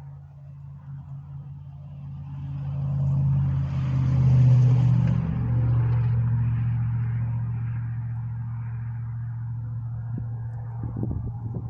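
A motor vehicle's engine running close by, growing louder to a peak about four seconds in and then slowly fading, as a vehicle passing by would. A few short knocks come near the end.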